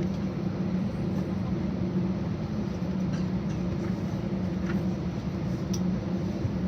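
Steady drone inside an Airbus A320's cabin before takeoff, a constant low hum of the engines and air systems, with a couple of faint ticks about five seconds in.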